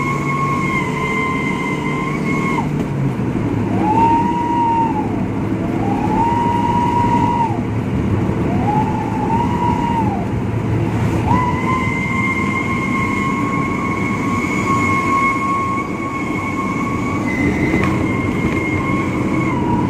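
Petrol engine of a Daihatsu Gran Max pickup heard from inside the cabin while driving, through a 'Srigala' whistle exhaust: a high howling whistle over the engine drone that rises and falls in three short swells, then holds steady for several seconds.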